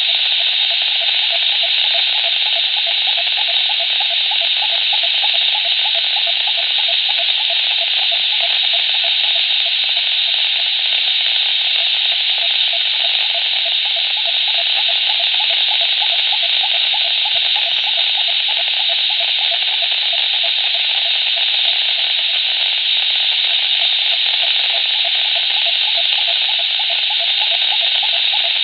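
PMR walkie-talkie speaker giving out a steady hiss with a fast fluttering buzz underneath: a strange signal received on the radio channel.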